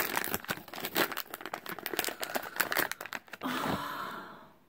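Foil blind-bag packet crinkling and crackling as it is handled and torn open by hand, with a smoother tearing rustle about three and a half seconds in before the sound dies away.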